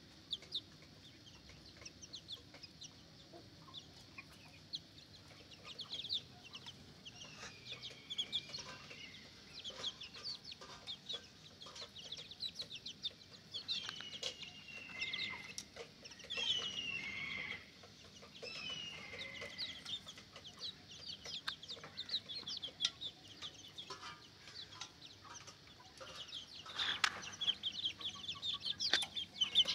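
Young Ayam Cemani chickens peeping and cheeping, many high, falling calls overlapping, busiest in the middle and again near the end, with scattered light ticks among them.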